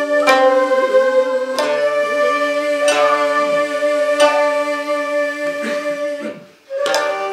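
Shamisen struck with a plectrum, a sharp plucked stroke about every second and a half, under a held, slightly wavering sung line. The music breaks off briefly near the end, then resumes.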